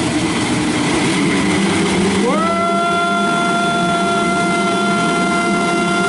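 A pack of 50 cc two-stroke motocross bikes revving at the start gate. About two seconds in, the engines rise sharply in pitch as the riders launch off the line, then hold a high, steady note at full throttle.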